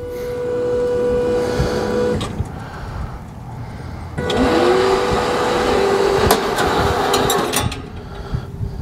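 Electric drive motor of a moving-target carriage running along its aluminium rail track with a steady whine. It stops about two seconds in, then starts again about four seconds in, rising in pitch as it comes up to speed, with a few sharp ticks, and drops off again near the end. These are the stops and restarts of the carriage reversing at each end of its run.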